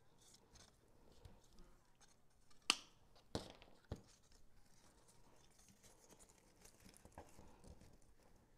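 Three sharp snips from a pair of wire cutters, a bit under three seconds in and spread over about a second, the first the loudest, with faint rustling of artificial pine greenery being handled.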